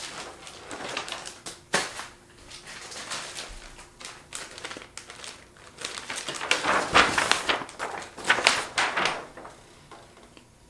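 Plastic parts of a large Transformers Trypticon toy being handled and fitted together: irregular clicks, knocks and rustling scrapes. They come thickest from about six to nine seconds in, then die away.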